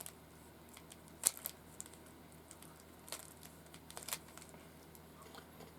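Rubik's cube being handled and turned: a few scattered sharp plastic clicks, the loudest about a second in.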